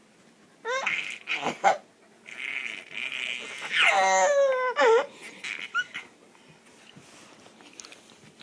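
A baby making a new excited noise: a string of high-pitched vocal cries that slide down in pitch, with a breathy hissing stretch between them, stopping about six seconds in.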